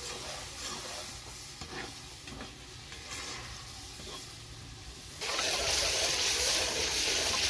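Faint stirring with a few light clinks, then about five seconds in a loud, steady sizzle of food frying in hot oil starts suddenly.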